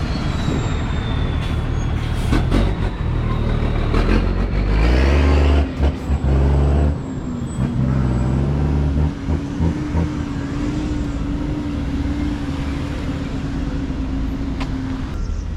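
Motor vehicles moving through a road-works lane: an engine revs up and pulls away about four seconds in, then another engine holds a steady note until near the end.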